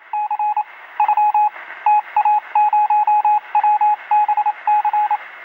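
A rapid series of short electronic beeps at one steady pitch, in irregular groups like Morse code, over a faint static hiss: a sound effect for an end card.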